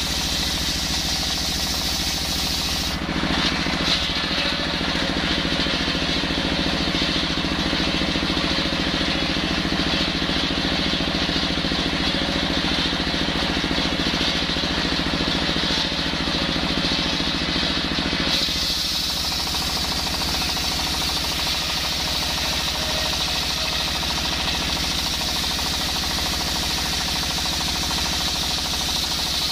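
Table circular saw ripping lengthwise through a coconut palm trunk, powered by a stationary single-cylinder diesel engine with a big flywheel. The engine's steady running beat goes on under the noise of the blade cutting the hard wood. The sound shifts in character about three seconds in and again at about eighteen seconds.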